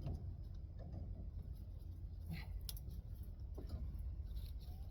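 Side cutters snipping and handling the metal tubing of an air-conditioner coil: a few short, sharp clicks around the middle, over a low, steady rumble.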